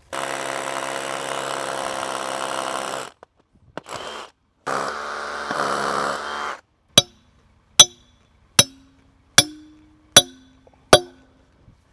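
A power drill runs for about three seconds, briefly again, then for about two more seconds. Then come six sharp hammer blows, a little under a second apart, several of them ringing, as a pin is driven in to keep the lifting chain from slipping off.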